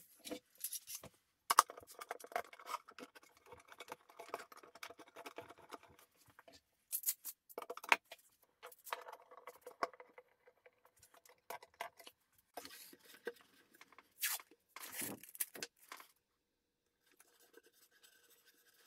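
Hands working with a wooden tray and a metal-bar frame clamp: intermittent clicks, knocks and scraping as the clamp is fitted around the tray and its screw handle tightened.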